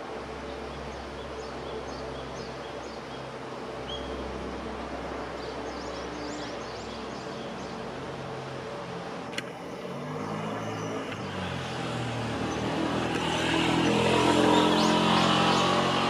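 Road traffic rumbling, with a motor vehicle's engine growing louder through the second half and loudest a couple of seconds before the end. Faint high bird chirps come through early on and again near the end, and there is a single sharp click about nine seconds in.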